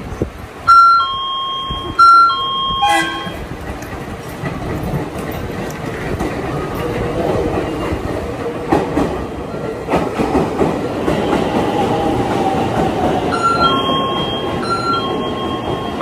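A descending two-note chime sounds twice. Then a JR Central local electric train pulls in alongside the platform, its rumble and wheel clatter over the pointwork building up as it comes closer. The chime sounds twice more, fainter, near the end.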